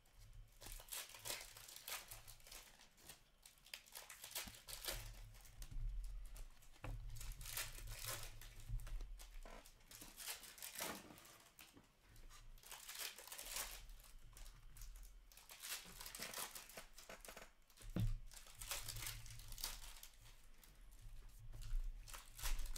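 Hockey card pack wrappers crinkling and tearing as packs are opened, with the cards rustling as they are handled; irregular bouts of crackle with a few sharper louder moments near the end.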